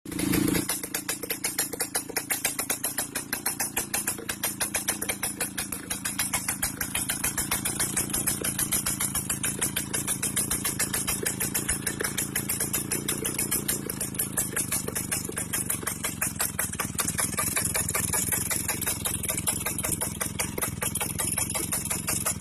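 Vespa scooter's small two-stroke single-cylinder engine idling, a fast, even run of firing pulses, its speed rising and falling slightly.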